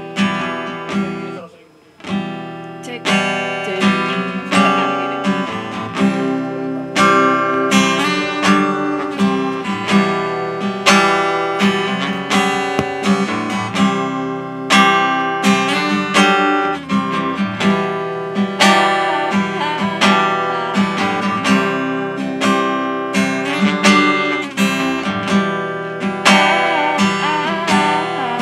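Acoustic guitar strummed in a steady rhythm. The strumming breaks off briefly about a second in, then resumes.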